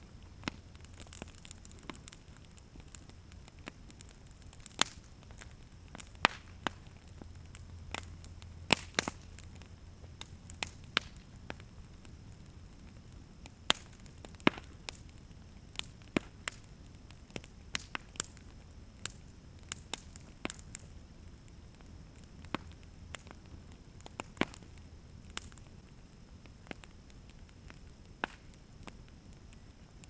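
Wood fire crackling around a water heater tank, with sharp irregular pops, a few much louder than the rest, over a low rumble.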